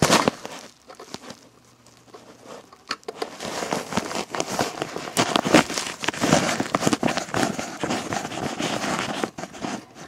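Close-up handling noise, rustling and crackling with many small clicks, as a small Phillips screwdriver works the captive screws of an iMac's memory access door. It is fairly quiet for the first few seconds and then busier until near the end.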